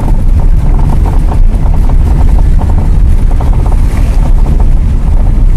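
Car driving over cobblestone paving: tyres and body shaking on the stones, a loud, continuous low rumble with a rapid jitter that starts abruptly as the car comes onto the cobbles.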